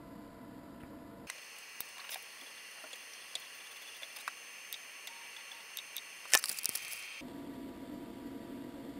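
Scattered small clicks and handling noises as PLA filament is fed by hand into a 3D printer's extruder, with one sharper click about six seconds in, over a faint steady hiss.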